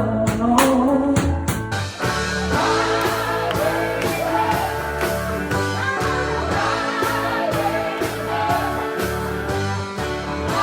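Background music: a song with singing over guitar, bass and a steady beat.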